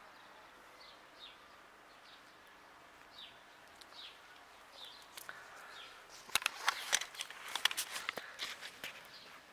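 A bird repeating short, thin, falling chirps about once a second over a quiet outdoor background. From about six seconds in there is a close run of sharp clicks and scuffs, the loudest sound here, like shoe and handling noise on a concrete path.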